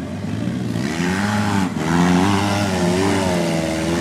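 Polaris RZR side-by-side's engine running under throttle, its pitch rising and falling as it revs, louder from about a second in.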